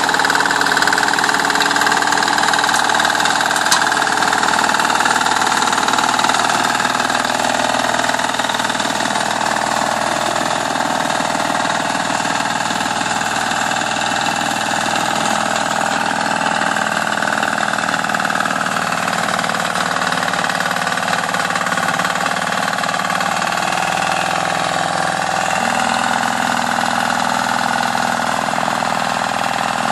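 Acecowboy 186 walking tractor's single-cylinder diesel engine running steadily while it drives a rotary plough through garden soil.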